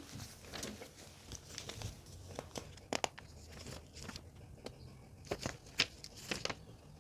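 Paper and packaging being handled: soft rustling with scattered sharp crinkles and small clicks, a few of them louder around three seconds and five to six seconds in.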